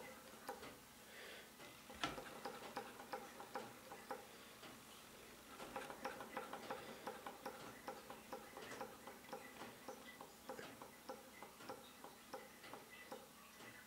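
Small DMF Stirling hot-air engine running slowly while it warms up, its mechanism giving faint, light clicks that turn into a quicker, steadier ticking about five seconds in.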